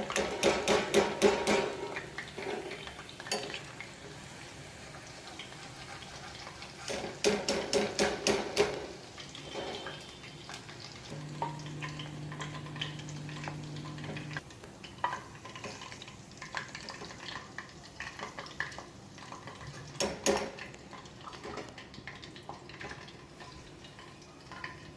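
A metal spoon clinks and scrapes against a frying pan of hot oil, in two bursts of rapid clattering with scattered clinks between, over a faint sizzle of frying chicken pieces. A steady low hum sounds for a few seconds about halfway through.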